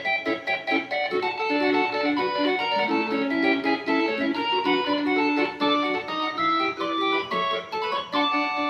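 Yamaha YC-20 combo organ played through an amplifier with reverb, a rhythmic chord accompaniment with notes changing quickly over held tones.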